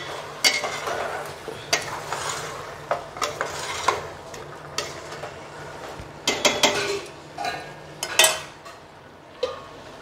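Spatula stirring marinated chicken pieces in a stainless steel pot on the stove, with irregular scrapes and knocks against the metal and some sizzling from the pot.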